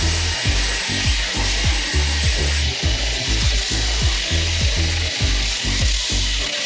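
Belt sander running steadily on a floor, a continuous high hiss of sanding, with background music carrying a steady bass beat underneath.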